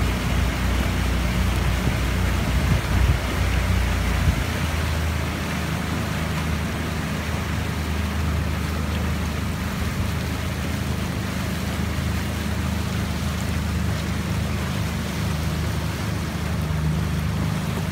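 Outboard motor of a coaching launch running steadily, with water rushing along the hull; the motor's low hum shifts slightly about four seconds in.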